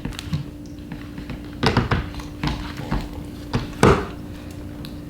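A phone and a plastic case or fitting tool being handled and set together: a series of light knocks and clicks, the loudest near the four-second mark, over a steady low hum.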